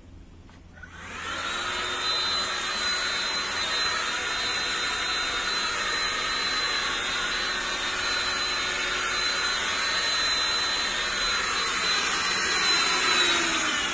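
Makita DCL280F 18 V cordless vacuum cleaner, modified to serve as the air blower for an HVLP spray gun. Its motor spins up about a second in and runs steadily with a high whine and rushing air, then winds down near the end.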